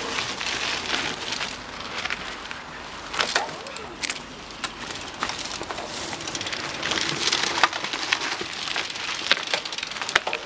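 Mountain bikes riding down a rocky dirt trail: tyres crunching over dirt, stones and dry leaves, with scattered sharp clicks and rattles from the bikes.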